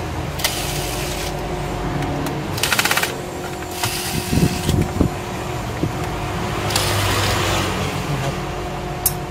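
Electric screwdriver running in short whirring bursts, about three times, backing out the small internal screws of a laptop's base. Between the bursts come small clicks and knocks of handling, over a steady faint background hum.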